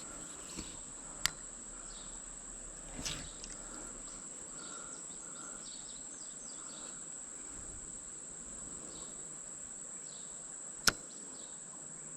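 Insects making a steady, high-pitched drone, with two sharp clicks: a small one about a second in and a louder one near the end.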